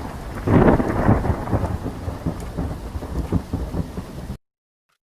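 Thunderstorm sound effect: a peal of thunder rumbles over steady rain, swelling loudly about half a second in and then rolling away, and it cuts off abruptly about four seconds in.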